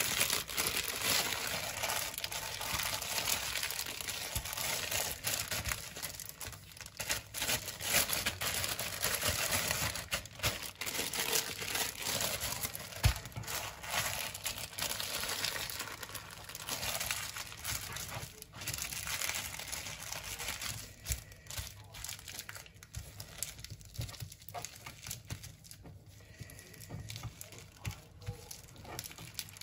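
Plastic wrap and plastic bags crinkling and rustling continuously as gloved hands roll and wrap a log of minced pork mixture, with many small crackles; quieter for the last third or so.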